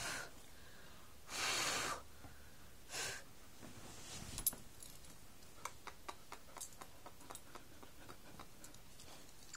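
Dog sniffing and blowing air right at the phone's microphone in three short breathy bursts, the longest about a second and a half in, followed by a run of light clicks and jingles from its collar.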